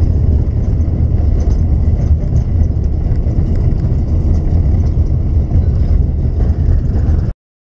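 Steady low rumble of a moving bus, its engine and road noise heard from inside the cabin; it cuts off abruptly near the end.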